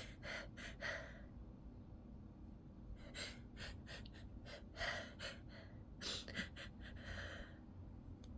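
A person's short, sharp gasping breaths in three clusters: the hitching intakes of a sneeze buildup that does not yet release into a sneeze.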